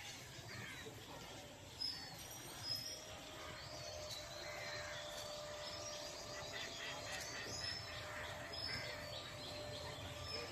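Several birds chirping and calling in short, scattered notes over a steady background hiss of outdoor ambience, with a faint steady hum entering about four seconds in.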